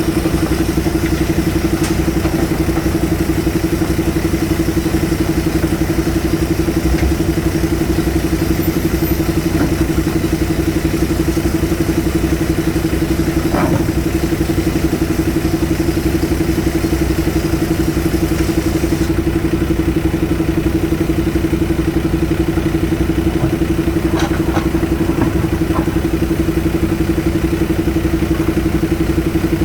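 JCB 3DX Super backhoe loader's diesel engine running steadily at constant speed, with a few short clanks: one about halfway and several near the end.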